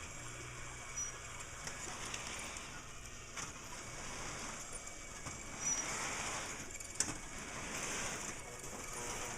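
O gauge electric model train running on its track: a steady rolling rumble of wheels on tinplate rail with a few sharp clicks, growing somewhat louder after the middle.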